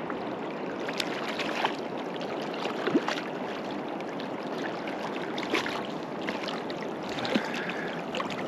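Shallow, rocky river flowing steadily close to the water surface, with a few brief small splashes and ticks from the water and a hooked fish being drawn in.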